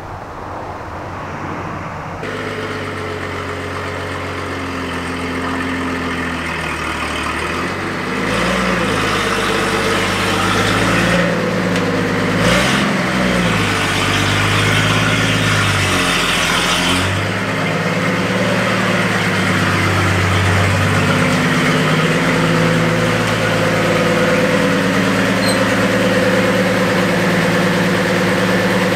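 1937 Chevrolet's inline-six engine running at idle, blipped up in revs several times in the middle, then settling back to a steady idle.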